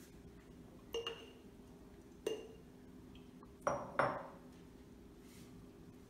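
Four sharp clinks with a short ring, about 1, 2.3, 3.7 and 4 seconds in: a big calligraphy brush knocking against a small ink bottle as the brush is re-inked.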